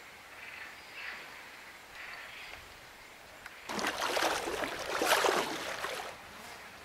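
Water splashing and sloshing close to the microphone for about two seconds, starting a little past the middle, after a quieter stretch with a few faint bird calls.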